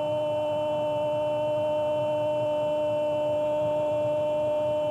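Football commentator's long "goooool" cry, held on one steady, unbroken high note.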